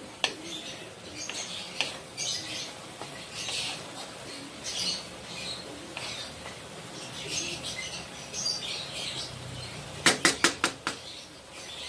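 Wooden spatula stirring and scraping sautéed bitter melon and egg around a non-stick wok, in irregular soft scrapes about every second. Near the end, a quick run of about six sharp knocks.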